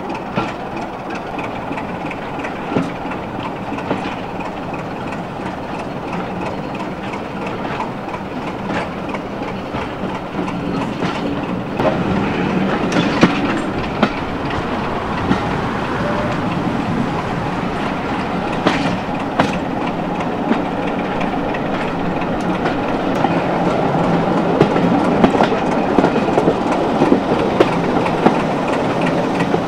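Passenger coaches rolling out of a station, the wheels clattering over rail joints and pointwork with occasional sharp clicks and knocks. The sound grows louder about halfway through and again near the end as the train gathers speed.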